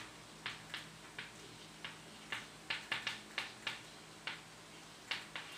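Chalk writing on a chalkboard: a string of short, irregular taps and scratches as each letter is drawn.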